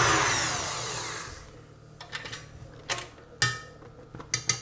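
KitchenAid stand mixer whipping egg whites at high speed is switched off, its motor and whisk winding down with a falling whine over about a second and a half. Then come several sharp metal clicks and knocks as the head is tilted up and the wire whisk is taken out of the stainless steel bowl.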